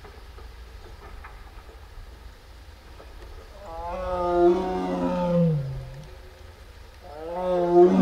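A tiger calling twice: two long, loud roaring calls a few seconds apart, each sliding down in pitch at its end; the first comes about halfway in, the second starts near the end.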